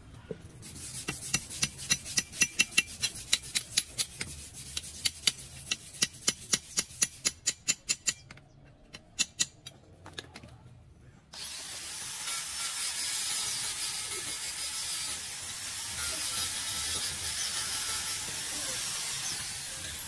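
A small hammer tapping metal in a quick run of sharp strikes, about three a second, for the first several seconds, then a few lighter clicks. After a short pause, about eleven seconds in, an electric handheld sanding-disc grinder starts and runs steadily to the end.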